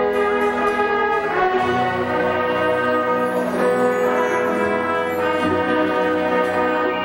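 Orchestra of strings and brass, with trumpets and trombones, playing a slow worship song in sustained chords that change every second or two.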